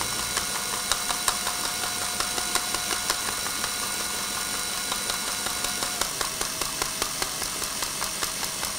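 Cordless brushless drill running steadily with a motor whine, spinning the input of a 3D-printed plastic harmonic drive (strain wave gear) whose printed gears click rapidly and evenly as they turn. The whine drops a little in pitch about six seconds in.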